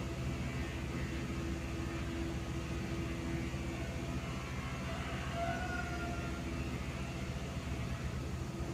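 Cosmos 140 cm industrial ceiling fan (model 56-CBA) turning, a steady motor hum under an even rush of moving air.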